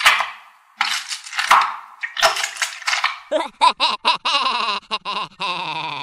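Cartoon sound effects. First comes a quick run of sharp, clattering noise bursts. Then, about three seconds in, a series of short wavering pitched notes ends in one long wavering note.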